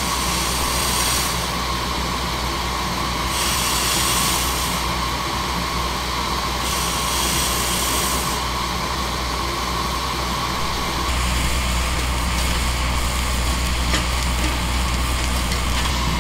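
Steam hissing from a 7.5-inch gauge Alco-style Northern live steam locomotive being fired up, with three bursts of louder, sharper hiss a few seconds apart over a steady rumble. About eleven seconds in, the low rumble grows stronger.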